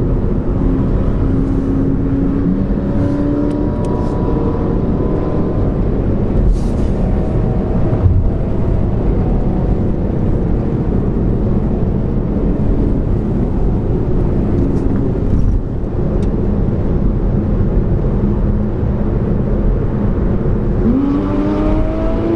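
Steady road and engine noise of cars at motorway speed, heard from inside a following car's cabin. Near the end an engine revs up, its pitch rising.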